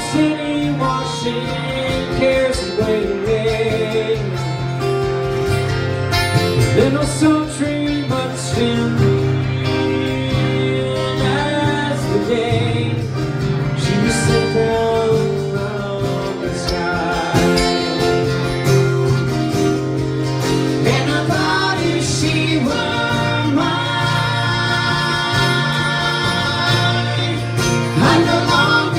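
Live country-folk song: two acoustic guitars playing, with a man singing.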